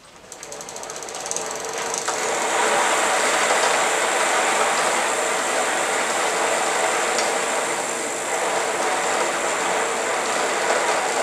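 Shimano Nexus internal-gear rear hub spinning up with the wheel and then running steadily, a dense whirring rush of hub and wheel noise. Fine rapid ticking is heard as it picks up speed in the first two seconds.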